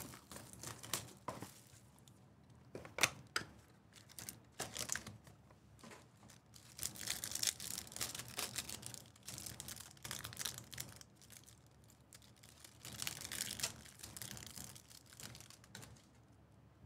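Trading card packs being torn open by hand, with wrappers crinkling and cards handled: a few sharp clicks and snaps in the first few seconds, then two longer spells of crinkling and tearing.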